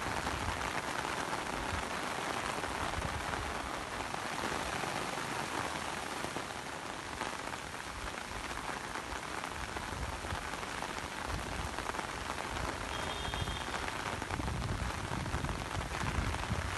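Heavy rain pouring onto a wet, water-covered road: a steady hiss of rain on the surface, with some low rumble in the last few seconds.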